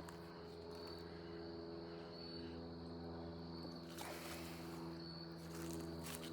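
Light aircraft droning steadily overhead, a low even hum. An insect calls high in short, regular pulses over it, and there is a brief faint rustle about four seconds in.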